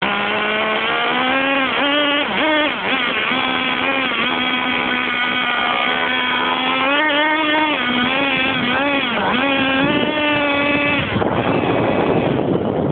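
Nitro RC car's small glow-fuel engine running at a high, buzzing pitch, heard up close from a camera mounted on the car, revving up and down over and over as it speeds and slows. Near the end a rushing noise briefly takes over.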